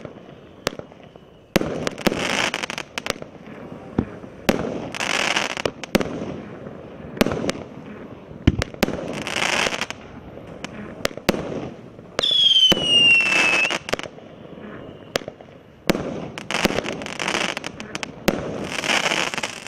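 Aerial fireworks going off one after another: sharp launch pops, each followed by a crackling burst lasting about a second. A single descending whistle sounds about twelve seconds in.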